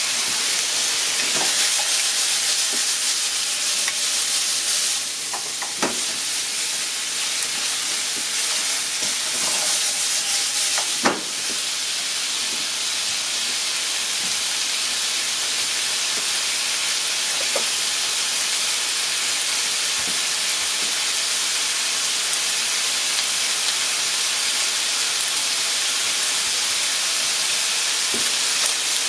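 Chicken pieces sizzling steadily as they fry in a nonstick frying pan over a gas burner, with a few sharp knocks of chopsticks against the pan, the loudest about eleven seconds in.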